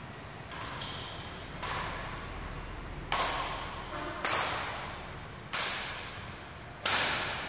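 Badminton rackets hitting a shuttlecock back and forth in a rally: six sharp cracks about a second to a second and a half apart, each ringing on briefly in the hall's echo, the last one the loudest.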